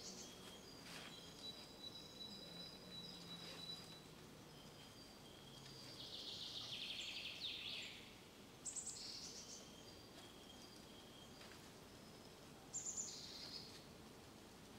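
Faint birdsong in woodland: thin high whistles, a longer rapid trill midway, and two short high calls later on, over a faint low hum at the start.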